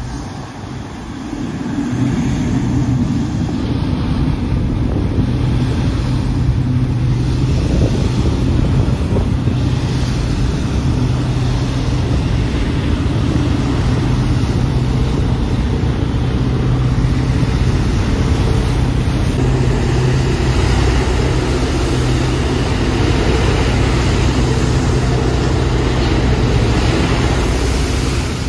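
Thames Clippers Uber Boat catamaran's engines running with a steady low hum that grows louder about two seconds in, over the rush of water churned up at its stern.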